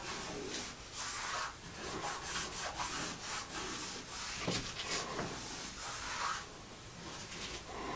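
A hand rubbing and scraping across the sketched surface of a mural in quick, repeated strokes. The strokes are busiest for the first six seconds, then thin out and grow fainter.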